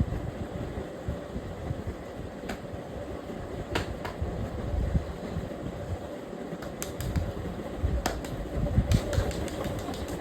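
Hands massaging an oiled head and scalp: a low rubbing rumble with scattered sharp clicks, a few single ones and short quick runs of them later on.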